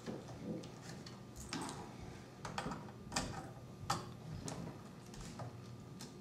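Faint, irregular clicks and taps, about half a dozen, as a VGA cable's metal connector is handled against a document camera's plastic case and pushed into its port.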